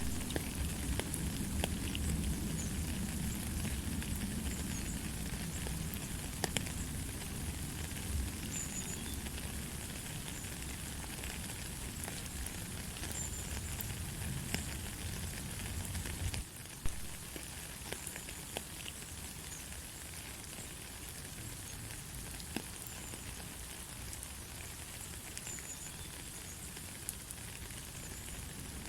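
Steady rain falling, an even hiss with scattered sharp drop ticks over a low rumble. About halfway through the rumble falls away and the rain becomes a little quieter.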